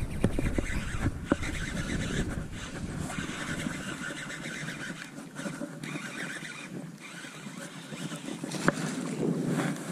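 Gusty wind buffeting the microphone over choppy water, with a few short sharp clicks: one near the start, one about a second in, and one near the end.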